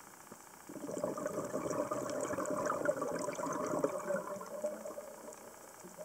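Scuba diver's exhaled breath bubbling out of the regulator, heard underwater: a burst of bubbling that starts just under a second in, lasts about four seconds and fades away.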